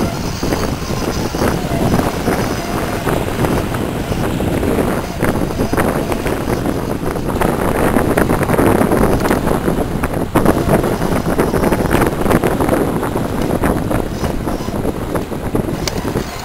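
Wind buffeting the microphone over waves washing against shoreline rocks, a rough, steady rush.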